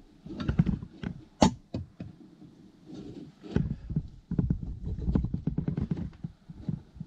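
Handling noise from wiring being worked by hand: cables rustling and knocking together as the diesel heater's lead is pushed into its controller plug. There are irregular soft clicks and knocks, with one sharp click about a second and a half in.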